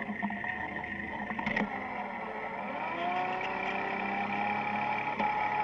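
Electric drive motor of a battery-electric converted Massey Ferguson 35 tractor spinning up from a standstill as it pulls off with the plow. A single knock comes about a second and a half in. About two and a half seconds in, the motor's whine rises in pitch, then holds steady and climbs slowly as the throttle is opened fully.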